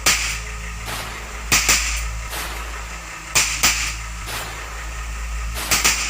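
Walther CP88 CO2 air pistol firing, four sharp pops about every two seconds, each followed closely by a second crack, over a steady low hum.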